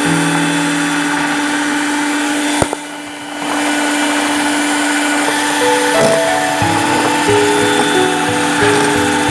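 Electric mixer running steadily with its beaters in cake batter, with a click and a brief dip in level about two and a half seconds in. Background music plays along with it.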